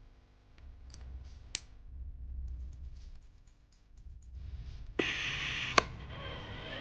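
Small sharp clicks and faint ticks from handling a watch and its parts on the bench, then a steady hiss about five seconds in, with two sharp clicks.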